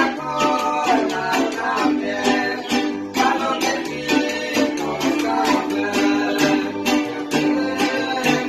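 Live string ensemble of acoustic guitars, small guitars and a violin playing a lively strummed tune with a steady beat.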